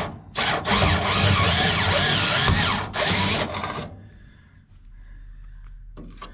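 Cordless drill with a step bit boring out a hole in the car's sheet-metal dash panel. It starts again after a brief pause, runs for about three and a half seconds, and then stops.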